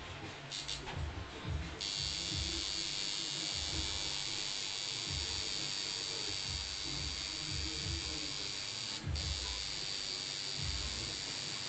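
Electric tattoo machine buzzing while it needles skin. It starts in a few short bursts, then runs steadily from about two seconds in, with a brief break a little after nine seconds.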